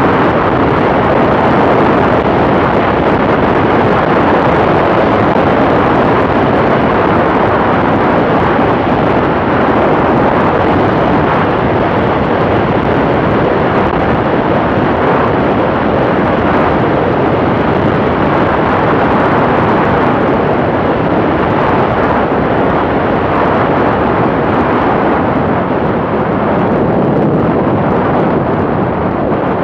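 Steady rush of wind over an exterior-mounted camera on a Cessna 182 Skylane in flight, mixed with the drone of its engine and propeller. It eases slightly near the end.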